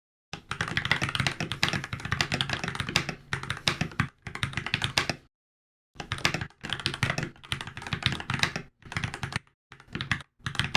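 Fast typing on a Keychron K14, a 70% aluminum mechanical keyboard with hot-swappable Gateron switches and ABS keycaps: a dense, continuous clatter of keystrokes that stops briefly about five seconds in, then resumes with a few short pauses near the end.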